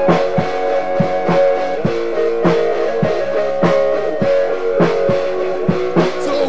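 Instrumental band music: guitar chords ringing over a steady drum beat of about two hits a second.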